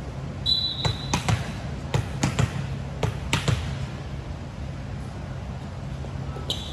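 A volleyball bounces on the gym floor about nine times in the first few seconds, each knock echoing in the hall. A short high referee's whistle sounds about half a second in, and again near the end, just before the serve.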